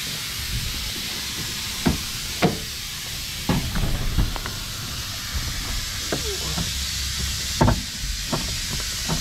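A car door being opened by its outside handle and swung wide, with several sharp knocks and clicks from the latch and handling. A steady hiss runs underneath.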